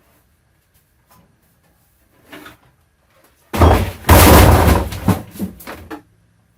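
A faint knock, then a sudden loud crash of the metal oven with rattling that dies away over about two seconds.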